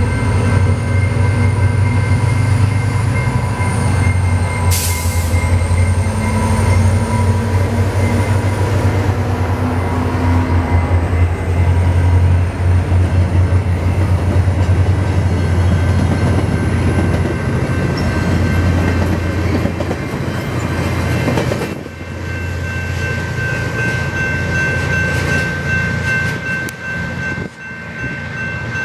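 VIA Rail F40PH-3 diesel locomotive, with its EMD two-stroke V16, working under power as the passenger train pulls out, a steady low engine drone with the coaches' wheels rolling past. The sound drops off about 22 seconds in as the train moves away.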